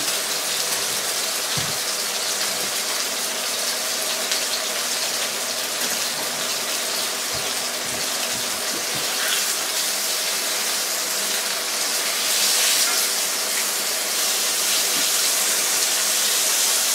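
Skinless chicken breasts frying in a little canola oil in a skillet: a steady sizzle that grows louder over the last few seconds.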